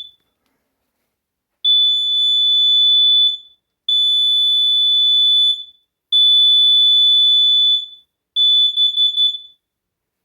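Combination carbon monoxide and explosive gas alarm sounding on test, really loud. A short beep is followed by four long high-pitched tones of nearly two seconds each with brief gaps, and the last tone stutters before it stops.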